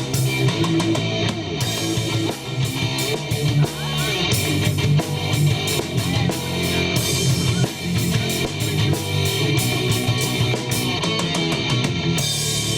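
Rock band playing live: electric guitar over a drum kit with constant cymbal hits, the music running steadily loud.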